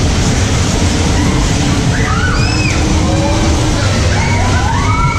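Loud funfair din: a steady rush of noise with music and voices calling out in short rising-and-falling shouts, twice.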